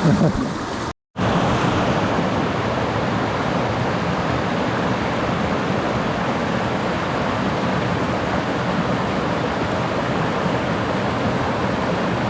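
Mountain river rushing steadily over rocks, a loud even rush of water. The sound drops out completely for a moment about a second in.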